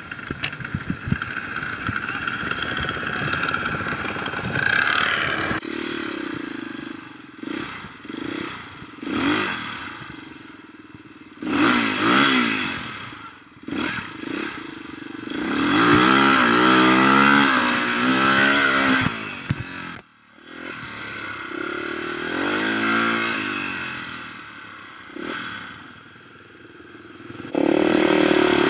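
Off-road dirt bike engine running and revving up and down in repeated surges as the bike is ridden, heard from a camera on the handlebars with rattling and clatter. The loudest surges come about twelve seconds in, from about sixteen to nineteen seconds, and again near the end.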